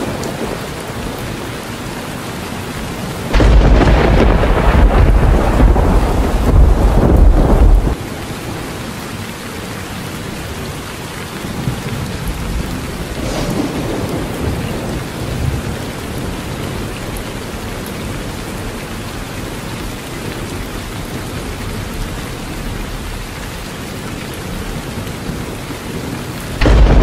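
Heavy rain pouring steadily on trees and undergrowth. About three seconds in a loud, deep rumble starts suddenly and cuts off around eight seconds; it starts again near the end.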